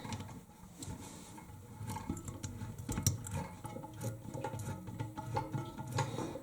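Scattered light clicks and taps of hand work on a toilet's floor bolts as the nuts are snugged down lightly and the toilet is rocked back down onto its seal.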